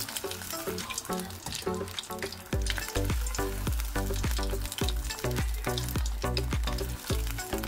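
Breaded boiled eggs deep-frying in hot oil, sizzling and crackling steadily, under background music whose bass line comes in about two and a half seconds in.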